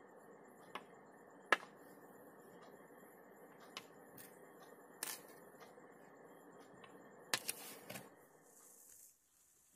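Faint steady hiss of room noise with a handful of light, sharp clicks and taps, the loudest about a second and a half in and a quick cluster near the end; the hiss cuts out just before the end.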